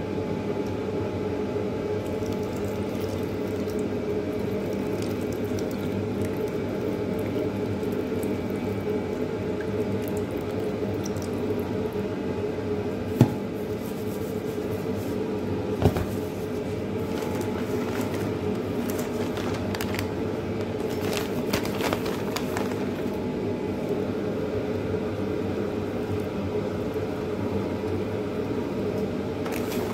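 A steady low machine hum, with two sharp knocks a little before and just after the halfway point, and a run of light crackles and clicks shortly after.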